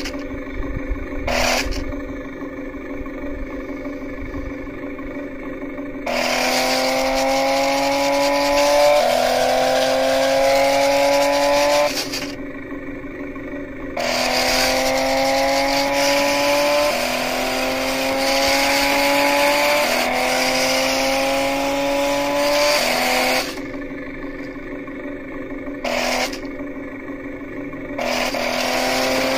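Small electric drive motors of a toy remote-control stunt car whining in repeated runs, the pitch rising slightly every two to three seconds, with wheel and rolling noise. Between the runs a steadier, quieter hum, and a few sharp clicks.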